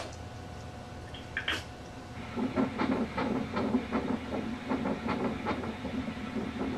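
Fetal heartbeat heard through the ultrasound machine's Doppler: a fast, rhythmic whooshing pulse of about two and a half beats a second, matching a heart rate of around 156, starting about two seconds in.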